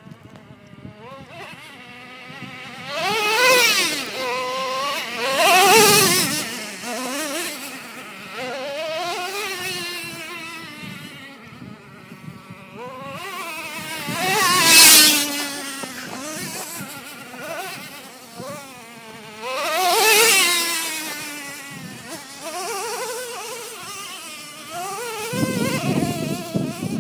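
Radio-controlled truck's motor buzzing, its pitch rising and falling as the throttle is worked. It swells loudly in four close passes, about 3, 6, 15 and 20 seconds in.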